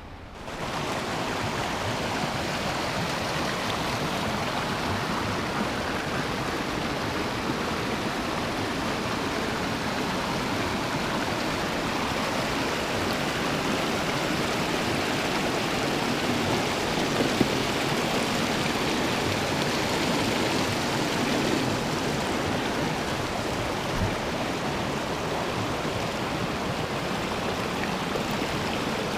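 Steady rush of a flowing stream or creek, coming in abruptly right at the start.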